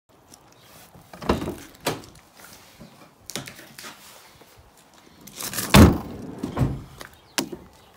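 A series of door knocks and thuds on a Volkswagen van, about six, the loudest a deep thud about six seconds in.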